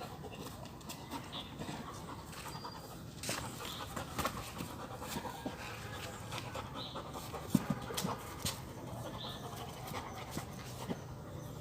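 A dog panting while it plays with a ball, with scattered knocks and scuffs, the sharpest about two thirds of the way through.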